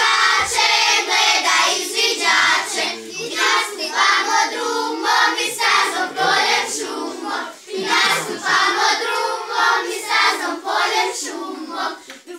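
A group of children singing a scout song together in unison.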